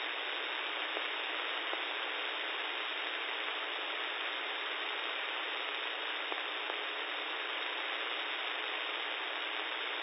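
Steady hiss of static on a NOAA Weather Radio broadcast with no programme audio: dead air where the looping EAS test message has been cut off.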